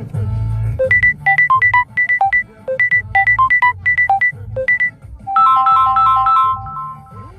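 Samsung Galaxy S10 playing one of its stock ringtones: a quick, bright melody of short notes hopping between a few pitches, then a denser run of repeated notes over held tones that stops shortly before the end.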